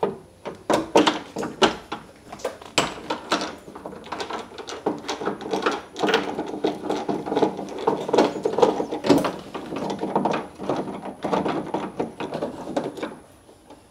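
A Phillips screwdriver and fingers clicking, tapping and scraping against the bare metal inner panel of a Mitsubishi Lancer's front door while the door handle's screws and linkage are undone. Many short knocks throughout, thickening into a busy run of small knocks and scraping through the middle.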